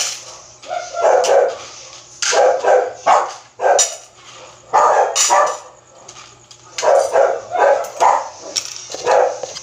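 Pet dogs barking over and over in short, loud bursts while hungry at feeding time.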